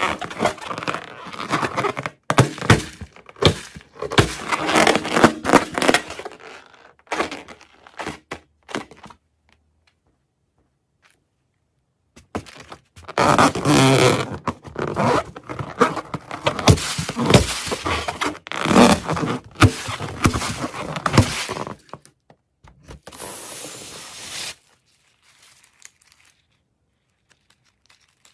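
Bead-filled slime and balloon rubber being squeezed and handled, with crunching and scraping in long bursts and a few seconds of silence in the middle.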